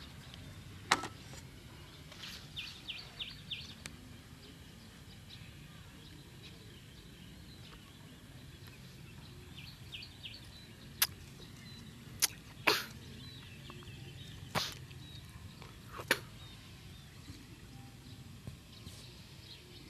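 Outdoor ambience: small birds chirping in two quick runs of short high notes, over a low steady rumble, with several sharp clicks or snaps at irregular moments, the loudest about a second in.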